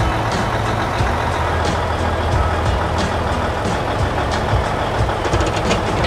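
Combine harvester's diesel engine running steadily, a deep constant hum, with a quick run of light clicks near the end.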